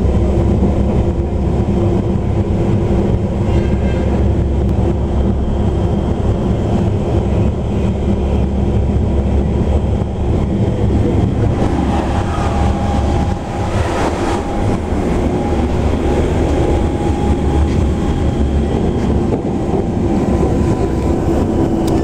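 Lima Metro Line 1 electric train running at speed, heard from inside the car by the gangway: a steady, loud rumble of wheels on the rails with a steady hum over it and a brief dip about two-thirds through.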